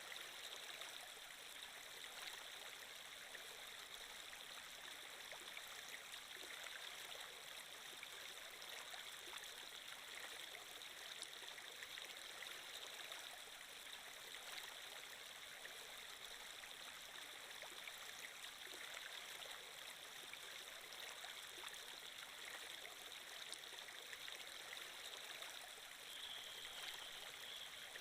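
Faint, steady sound of flowing water, like a running stream, used as a background sound effect.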